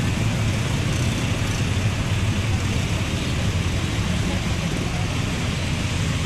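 Vehicle engine and road noise: a steady low hum with an even hiss over it.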